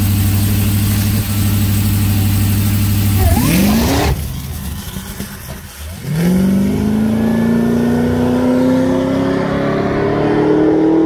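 Supercharged LSA V8 of a Cadillac CTS-V coupe held at steady revs on the drag-strip starting line, then revving up sharply as it launches, a launch on which the rear tyres wheel-hop. After a brief lull the engine is heard pulling down the track, its pitch climbing steadily.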